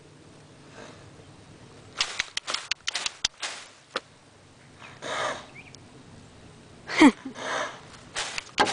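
Footsteps crunching on loose dirt, with a few short breathy blows or snorts mixed in; the loudest comes about seven seconds in.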